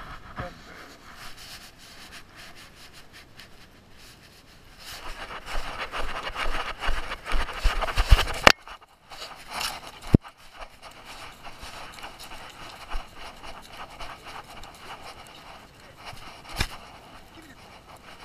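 Movement noise from a dog carrying a camera strapped under its chin: rubbing and scraping against the camera, loudest for about three and a half seconds in the middle, where it stops suddenly with a sharp knock, and a couple of single knocks later.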